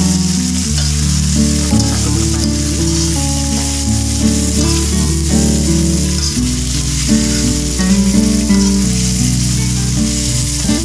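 Diced pumpkin and young corn sizzling in hot oil in a wok while being stirred with a spatula. Background music with a steady bass line plays throughout.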